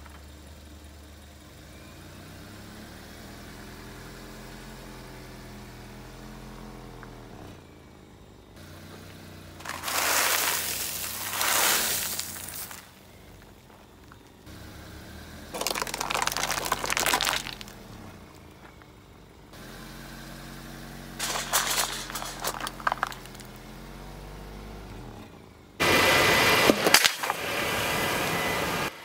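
A car engine running low and slowly rising and falling in pitch as the car rolls forward, broken four times by loud crunching and cracking as its tyres crush small plastic toy cars, candies and plastic bottles on asphalt. Each burst lasts two to three seconds.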